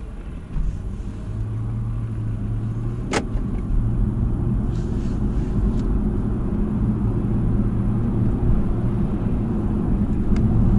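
Car interior noise while driving: a steady low road-and-engine rumble that grows louder over the first few seconds, with one sharp click about three seconds in.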